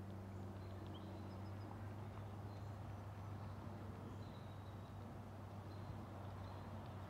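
Faint outdoor ambience: a steady low rumble, with a few faint, brief bird chirps now and then.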